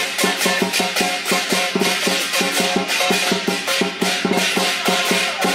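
Chinese dragon dance percussion: a drum beating fast with clashing hand cymbals and a ringing gong, in a steady driving rhythm.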